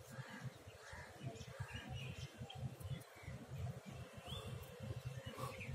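Faint scratching of a ballpoint pen writing on notebook paper, in short strokes about twice a second. Faint bird chirps and a low rumble sit underneath.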